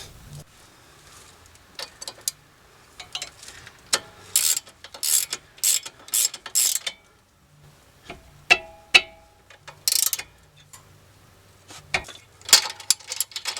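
Hand ratchet clicking in several short bursts as the nut on a sway bar end link is run down onto its stud, with a brief metallic clink partway through.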